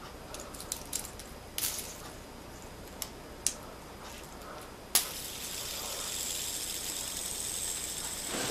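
Plastic fidget spinner handled with a few light clicks, then flicked about five seconds in and whirring steadily and high on its centre bearing.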